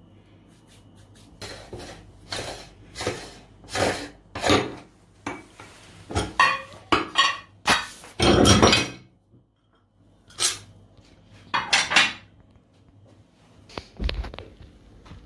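Steel parts of a meat grinder clinking and scraping against ceramic plates as the grinder is taken apart. A string of separate metal knocks comes, with the longest and loudest scrape about eight seconds in.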